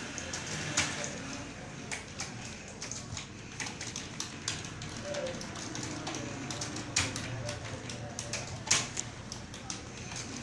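Computer keyboard keys clicking in an irregular, unhurried rhythm as a passage is typed during a typing speed test.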